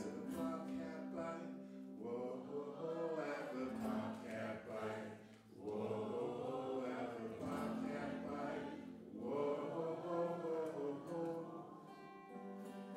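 A man singing in phrases of a couple of seconds over guitar accompaniment, with a brief pause about halfway through.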